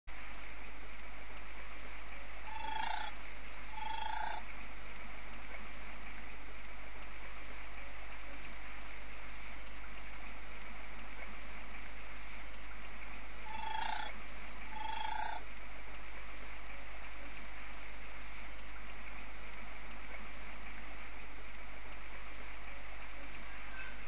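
Satin bowerbird giving short, harsh, buzzy calls in two pairs, the second pair about ten seconds after the first, over a steady hiss.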